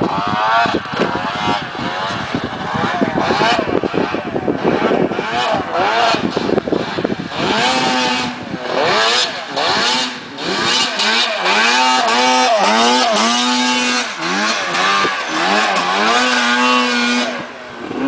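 Two-stroke engine of a 2009 Arctic Cat M1000 snowmobile revving hard as it climbs through deep powder, its pitch sweeping up and down again and again with the throttle. The first several seconds are a rougher, denser mix of engine and rushing noise; from about eight seconds in the revs come as clear rising and falling sweeps, several held high for a second or two.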